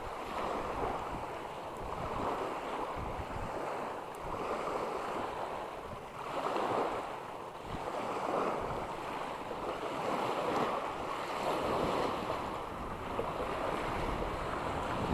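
Small waves washing onto the shore, swelling and falling every second or two, with wind buffeting the microphone.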